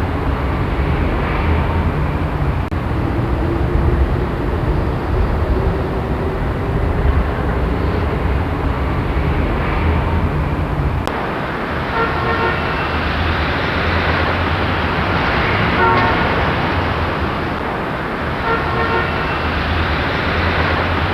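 City street traffic: a steady rumble of engines and tyres, with car horns honking several times in the second half. The background changes abruptly about halfway through.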